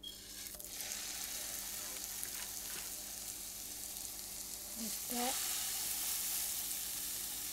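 Raw ground-beef hamburger patties sizzling in a hot, butter-sprayed nonstick frying pan. The sizzle starts as the first patty goes in and gets louder about five seconds in, when a second patty is laid in.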